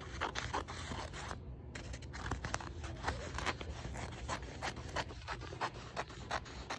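Scissors cutting across a sheet of contact paper and its paper backing: a quick, uneven run of crisp snips and scrapes, about three a second.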